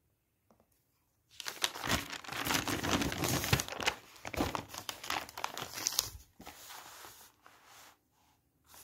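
Paper pages rustling and crinkling as a notebook's pages are turned over and smoothed flat. It starts about a second and a half in, is densest for the next few seconds, and thins out near the end.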